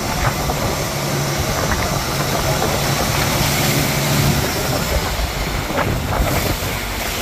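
Fishing boat's engine running steadily, with a low hum under the rushing, splashing wake along the hull.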